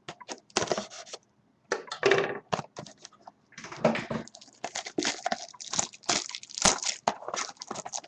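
Plastic wrapping being torn and crinkled off a sealed box of trading cards: irregular crackling and rustling in bursts, with brief pauses about a second in and about three seconds in.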